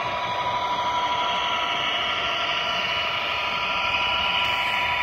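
HO scale model train running along the track: a steady mechanical whine with an even hiss of wheels on rail.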